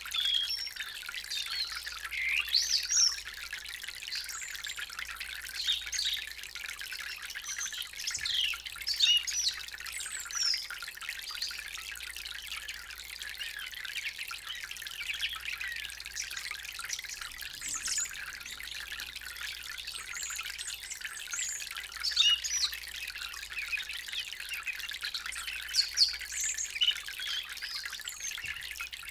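Water from a small three-tier solar cascade fountain trickling from its spouts into the bowls below: a steady high trickle with many small drips and plinks, a few of them louder.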